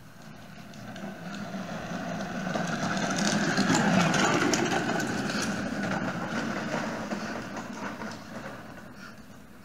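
A children's plastic ride-on electric toy car rolling over asphalt with a rattling rumble from its hard plastic wheels and drive. It grows louder as it passes close, about four seconds in, then fades as it moves away.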